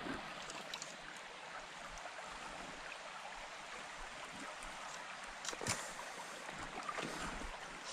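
Shallow stream running over a stony bed: a steady rush of water, with a few soft knocks, the clearest about five and a half seconds in.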